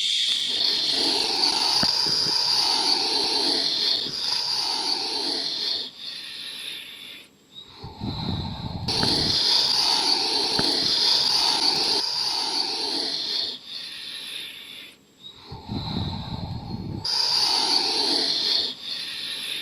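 A person's mouth imitating sea waves washing on a beach: long hissing 'shhh' rushes of breath that swell and fade, each lasting several seconds. Two of them are broken by a shorter, low, rough breath, about a third of the way in and again near the end.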